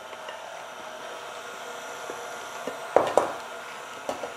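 KitchenAid Artisan stand mixer running steadily at low speed, its beater turning through cake batter as the last dry ingredients are mixed in. A couple of short knocks sound about three seconds in.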